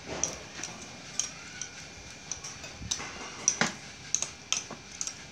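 Light, irregular clinks of metal spoons against ceramic plates and bowls as people eat, a few sharp ticks a second, one louder clink about two-thirds of the way in.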